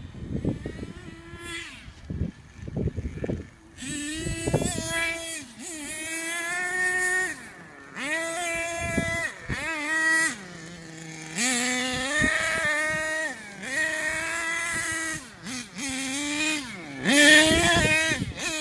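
Small nitro engine of an HPI Savage RC monster truck revving up and down as it is driven. It gives a high-pitched whine that climbs and falls about seven times, after a low rumble in the first few seconds.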